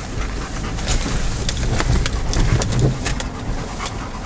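Honda HR-V crawling over a snowy track, heard from inside the cabin: a steady low rumble of engine and tyres with many sharp clicks and scrapes as branches rake along the bodywork.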